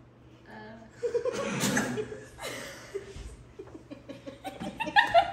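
Several girls laughing and giggling in short, breathy bursts, starting about a second in after a brief hush.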